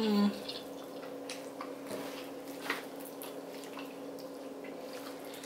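Wet slurping and chewing of saucy Samyang carbonara fire noodles, with scattered soft mouth smacks and a brief hummed 'mmm' at the very start.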